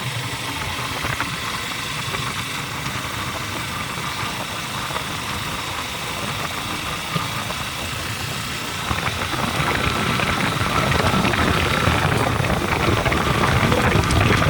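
Motorcycle engine running on the move, mixed with wind and road noise. It grows louder about nine seconds in.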